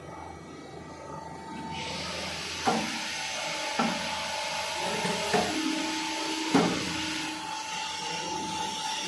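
Armature assembly press cycling: a steady hiss starts about two seconds in and runs for about five seconds, with four sharp clunks from the press strokes along the way, over a constant machine hum.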